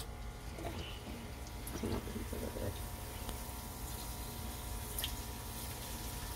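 Spring rolls frying in hot oil: a steady sizzling hiss of bubbling oil, with a few sharp pops and crackles, as the rolls are lowered in one by one.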